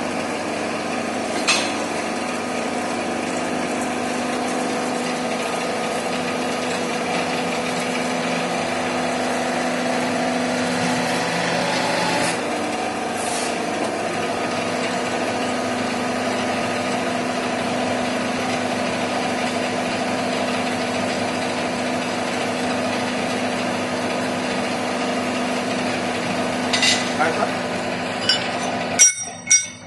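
Hydraulic press used for forming steel pipe clamps, its power-pack motor and pump humming steadily. A few sharp clicks sound along the way, and light metallic clinks come near the end as the die and the bent clamp are handled.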